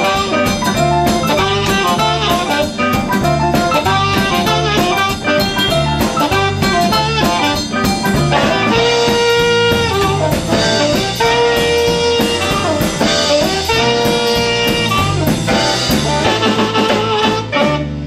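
Live garage-swing band playing an instrumental passage: upright bass and drum kit keep a swinging beat under electric guitar and saxophone. From about halfway through, the horn plays long held notes in a repeating riff.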